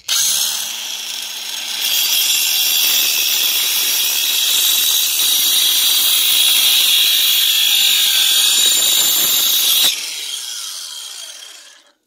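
A 12-volt cordless angle grinder (Sturm AG9020CL) with a wood-cutting disc starts up and cuts into wood with a steady high whine that gets louder about two seconds in. About ten seconds in it is switched off and the disc winds down.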